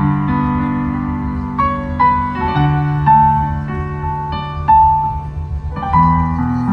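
Slow piano music: a melody of single notes over held low chords.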